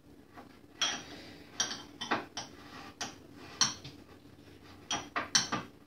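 A spoon knocking and scraping against a small bowl in irregular clicks, pressing graham cracker crumbs down into a crust.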